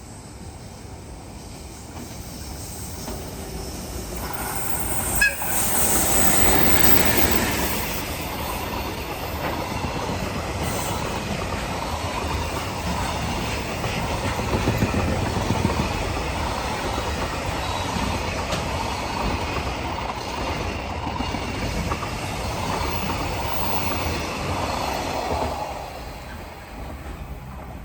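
Train running through the station: the rumble builds over the first few seconds, with a short sharp sound about five seconds in, then the wheels clatter over the rails for about twenty seconds before the sound fades away.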